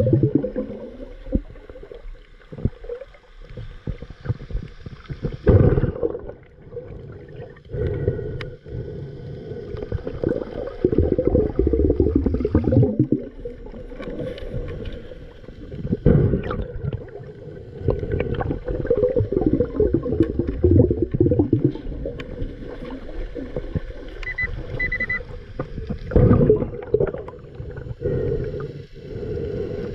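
Underwater sound of a diver breathing through a regulator, exhaled bubbles rumbling in surges every few seconds. Near the end a Pulse Dive underwater metal detector gives two short high beeps, signalling metal under the sand.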